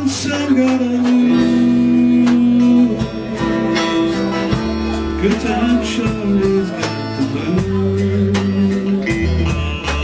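Live blues band playing an instrumental break with no vocals: electric guitars over an electric bass line and a steady drum beat.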